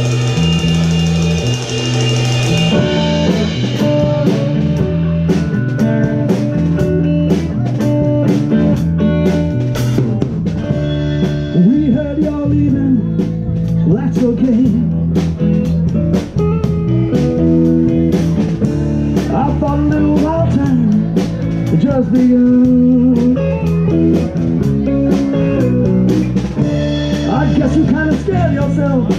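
Live band playing a rock song: electric guitar, electric bass and drum kit together, with a steady beat and gliding guitar lines over the bass.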